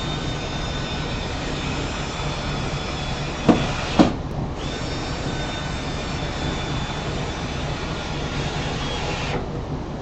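Cordless drill driving long 3-inch wood screws into pre-drilled holes, its motor running with a high whine in two long runs with a short pause about four seconds in. Two sharp knocks come just before the pause.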